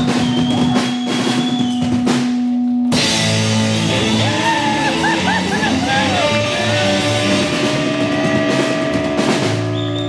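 Rock band playing live: electric guitars and bass over a drum kit. A held note with steady drumming cuts off abruptly about three seconds in, and a new passage of sustained chords with bending melody lines takes over.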